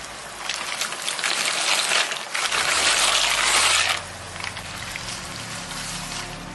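Water boiling hard in a cooking pot: a steady bubbling hiss that grows louder after about half a second and drops off suddenly about four seconds in, leaving a quieter hiss.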